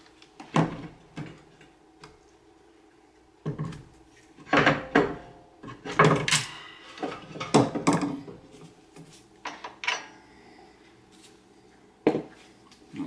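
Metal suspension parts knocking and clanking as a BC Racing coilover is worked into a car's front wheel well beside the steering knuckle: a series of irregular clunks, busiest in the middle, some with a short metallic ring.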